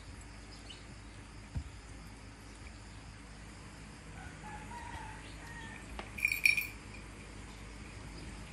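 Faint bird calls in the background, with a brief, louder jingle a little past the middle.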